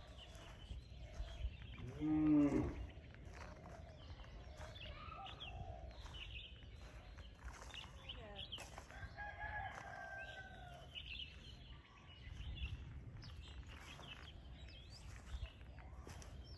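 Outdoor neighbourhood ambience with a rooster crowing once near the middle, small birds chirping and a low rumble underneath. About two seconds in comes a short, louder pitched call.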